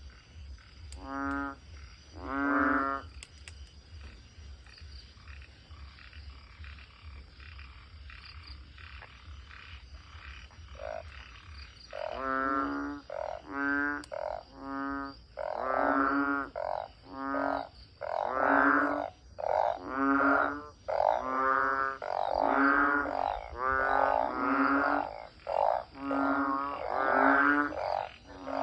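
Banded bullfrogs (Asian painted frogs) calling: nasal croaks of about half a second each, two near the start, then after a pause a steady chorus of calls about once a second from about twelve seconds in. This is their breeding chorus after heavy rain.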